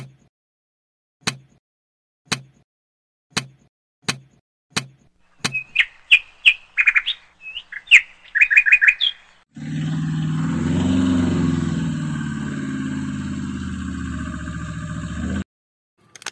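Sharp clicks about once a second as thin steel rods are laid into a cardboard tray, then birds chirping for a few seconds. About halfway through, a steady loud noise with most of its weight low starts abruptly, runs about six seconds and cuts off suddenly.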